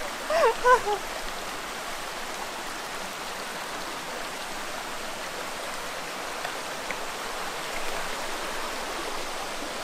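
Small rocky stream running steadily over stones, a constant rush of water.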